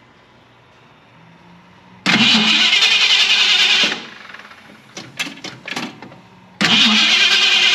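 Ford 289 V8 in a 1965 Mustang being started: a first start attempt of about two seconds cuts off, a few light clicks follow, and a second attempt near the end carries on.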